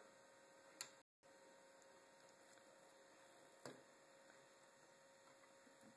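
Near silence with a faint steady hum, broken by two faint clicks, about a second in and a little past halfway, as a flash EEPROM chip is seated in the programmer's ZIF socket and locked down.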